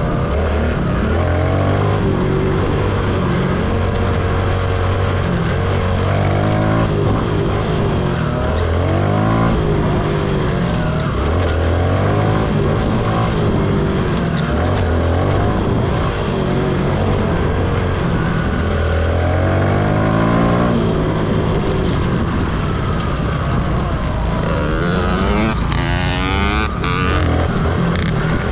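Small dirt bike engine, heard close up, revving up and dropping back again and again as it is ridden.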